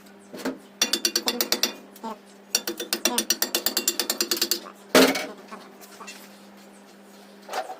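Rapid, even ratchet-like mechanical clicking from a workshop tool, about ten clicks a second, in two runs. A loud knock follows about five seconds in, and a smaller one comes near the end. A faint steady hum runs underneath.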